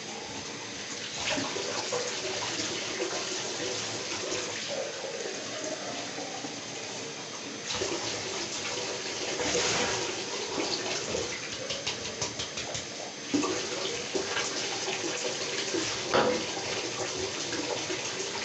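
Bathtub faucet running steadily into the tub, with splashing and a few sharp knocks as water is poured over a dog from a plastic cup.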